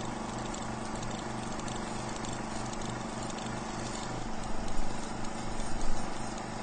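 Race truck engine idling with a lumpy, pulsing beat, swelling louder a few times past the middle.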